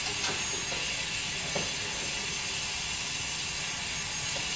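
Dental suction hissing steadily as it draws air and saliva from the patient's mouth, with a couple of faint clicks.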